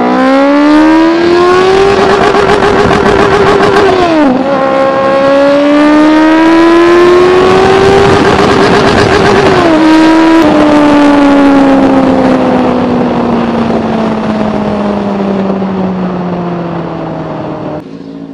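Benelli TNT 600i's 600 cc inline-four with an aftermarket Toce exhaust under full-throttle acceleration. The revs climb in first gear and hold at the top of the range for about two seconds. It shifts up to second about four seconds in and climbs again to near ten seconds, then the revs wind down steadily as the throttle is closed and the bike slows, with wind rush throughout.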